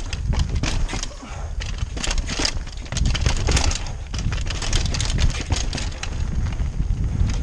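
Downhill mountain bike clattering down a rocky trail: tyres crunching over stones and dirt, with rapid irregular knocks and rattles from the bike. A low rumble, wind on the helmet-mounted camera's microphone, gets louder about three seconds in as the speed picks up.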